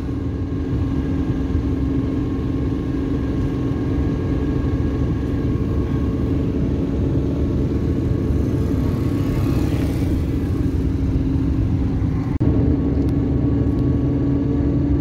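Car driving, heard from inside the cabin: a steady low engine and road rumble with a constant hum. The sound changes abruptly and gets slightly louder about twelve seconds in.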